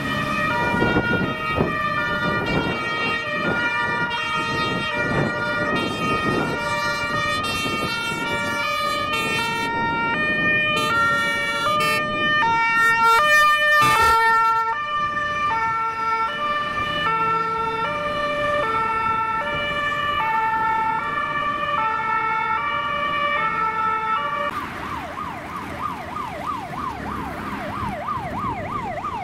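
Fire engines responding under emergency signals: sirens and horns sound a stepped sequence of alternating notes, over the rumble of the trucks driving past. About 25 s in, the sound changes to a fast rising-and-falling yelp, about three sweeps a second.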